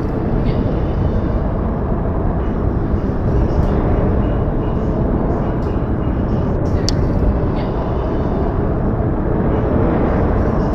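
Steady outdoor winter ambience from a snowfall recording: an even, low-weighted noise with no pitch, and one faint tick about seven seconds in.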